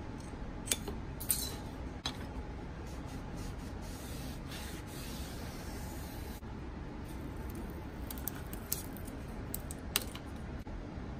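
Adhesive measuring tape being peeled from its backing strip and pressed down into a plywood jig's track. A soft peeling hiss about four to six seconds in, with a few light clicks and taps, over a steady low hum.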